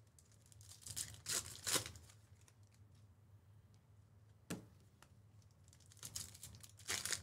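A trading-card pack's foil wrapper being torn open and crinkled, in short rustling bursts about a second in and again near the end. There is a single sharp tap around the middle.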